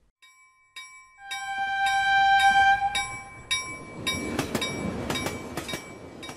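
Railroad sound effect: a bell ringing in quick repeated strokes, then the rumble and clatter of a passing train.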